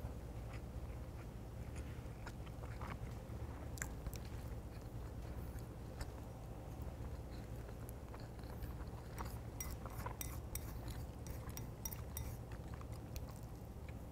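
Close-miked chewing of a mouthful of cooked rice, with soft wet mouth sounds and small sharp clicks that come thickest about nine to twelve seconds in. A steady low hum runs underneath.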